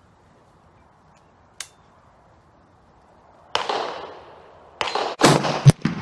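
Rifle gunshots on a covered shooting range, from a .300 Win Mag bolt-action rifle with a muzzle brake and the guns around it. A faint click comes about a second and a half in. A sharp report follows about three and a half seconds in and rings out for about a second, then a quick run of three louder reports comes near the end.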